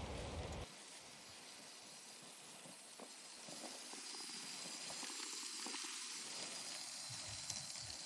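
Garden-scale model train running past on its track: a faint, even wheel-on-rail noise with scattered light clicks. A low wind rush on the microphone cuts off under a second in.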